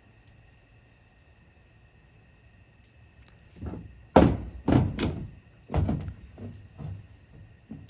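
A run of knocks and clunks from a saw chain and guide bar being handled and fitted onto a cordless chainsaw, four loud ones about four to six seconds in, then a few lighter taps.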